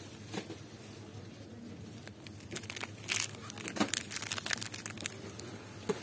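Plastic blister packaging crinkling and crackling as it is handled and turned over in a gloved hand, in a run of rustles from about halfway through to near the end.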